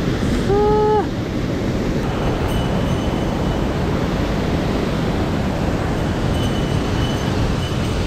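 Mountain stream running high after rain: a steady rush of water.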